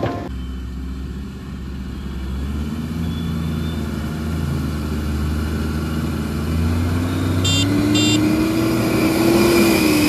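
Diesel engine of a JCB 3DX backhoe loader running steadily, then revving up about two-thirds of the way through as it works. Two short, high-pitched chirps come just before the rise.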